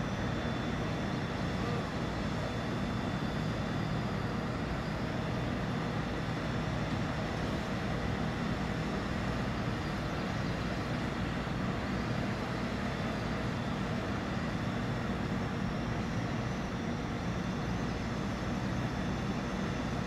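Mobile crane's engine running steadily, a low unchanging drone.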